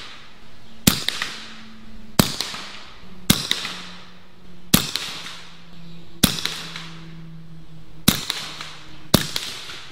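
Bintac T9 PCP air pistol fired through a moderator, seven shots about one to one and a half seconds apart, each a sharp crack with a short trailing ring.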